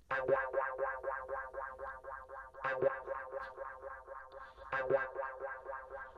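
Synth sample playing alone: a fast, repeating plucked pattern of short notes on one steady pitch, about six a second, with an accented note about every two seconds.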